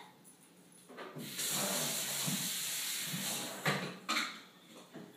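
Coughing and gagging from a mouthful of ground cinnamon, with a steady hiss of about two seconds in the middle and two short sharp coughs near the end.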